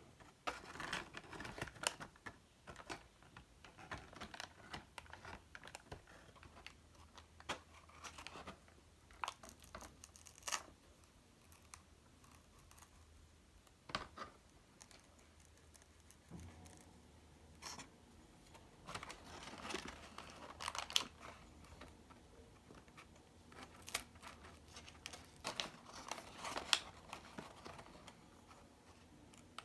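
Close handwork with paper: intermittent rustling and crinkling with brief tearing sounds, mixed with small sharp clicks and taps.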